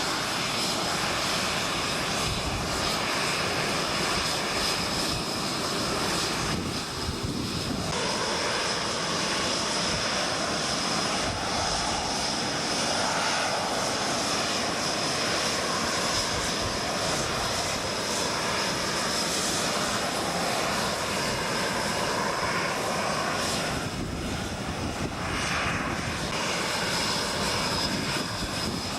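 Tornado GR4 jets' RB199 turbofan engines running on the ground: a steady, loud rush with a constant high whine and a lower tone that wavers slowly up and down.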